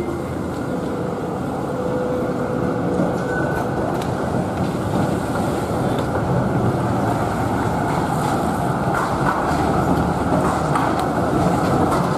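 Melbourne Z3-class tram passing close by, its wheels rolling on the rails with a steady rumble that grows gradually louder.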